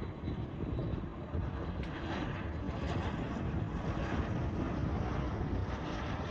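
Steady rumble of a jet airliner's engines, with wind buffeting the microphone.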